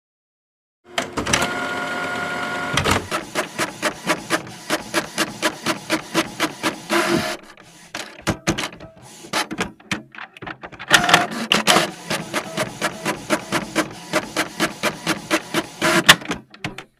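Office printer running: it starts with a steady whir, then clatters in quick regular strokes, about three or four a second, as it prints. The strokes break off for a few seconds in the middle, start again and stop shortly before the end.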